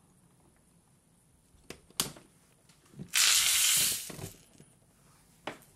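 Steel shot and coins sliding inside a clear plastic tumbler drum as it is tipped onto its side, a loud rushing rattle lasting about a second. A few clicks and knocks of the drum being handled and seated on the tumbler come before and after.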